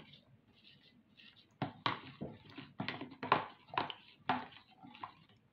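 Metal spoon stirring yeast into warm water in a plastic measuring jug, knocking and clinking against the jug's sides. The knocks come about two or three a second, starting after a quiet first second and a half.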